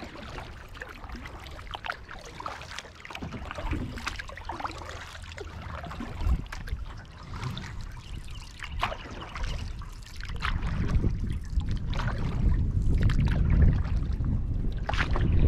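Kayak paddling on a calm lake: paddle blades dip and drip, and water laps and trickles against the plastic hull. A low rumble grows louder in the last third.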